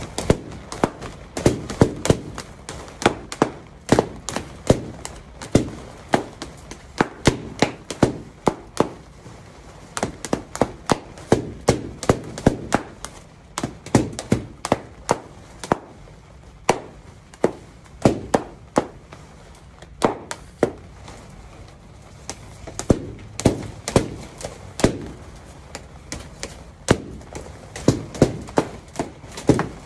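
Latex party balloons bursting one after another in a quick, irregular series of sharp pops, a few a second, with brief pauses now and then.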